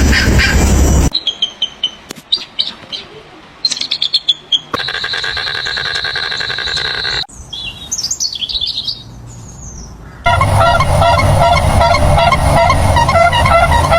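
A run of short clips of different bird calls and chirps with abrupt cuts between them: scattered high chirps, a buzzy call, then rising and falling whistled notes. In the last few seconds there is a dense, fast, steady chorus of repeated chirps.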